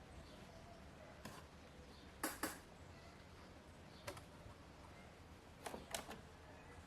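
A handful of light, sharp clicks and taps, scattered singly and in pairs, over a faint steady room hiss.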